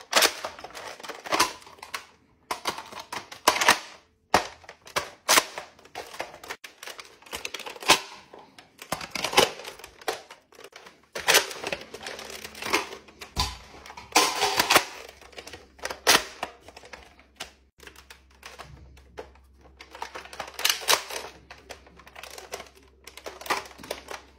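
Gun reload sounds: a string of sharp mechanical clicks and clacks of magazines and bolts, in clusters with short pauses, as several reload sequences play one after another.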